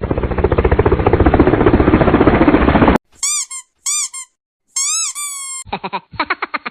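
Cartoon comedy sound effects: a fast rattling buzz for about three seconds, then three squeaky chirps that rise and fall, then a quick stuttering pulse near the end.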